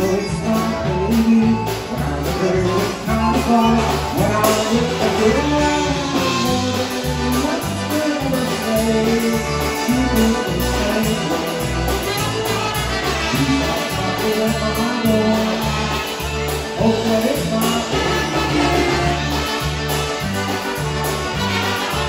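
Live polka band playing a polka: piano accordion, concertina and trumpets over electric guitar and drums, with a steady two-beat bass rhythm.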